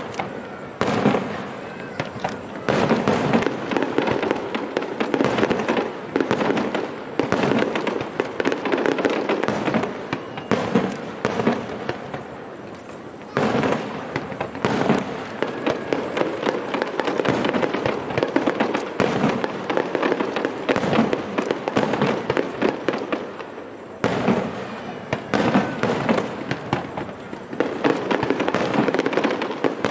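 Aerial firework shells bursting in quick succession: a dense run of bangs and crackling, with short lulls about twelve and twenty-three seconds in.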